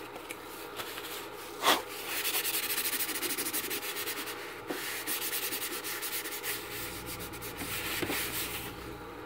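A sharp knock about a second and a half in, then several seconds of rapid, scratchy rubbing, made of many quick strokes.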